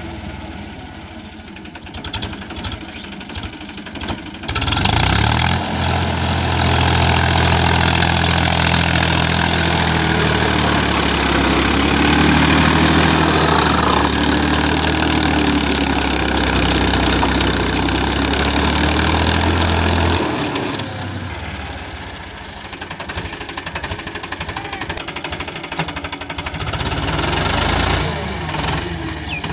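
Powertrac Euro 50 tractor's three-cylinder diesel engine running under load while working in deep mud. Its note comes in louder and steadier about five seconds in and drops back about twenty seconds in.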